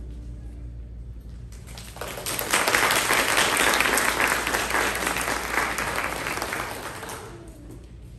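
Audience applauding, starting about two seconds in, at its fullest just after, and dying away near the end.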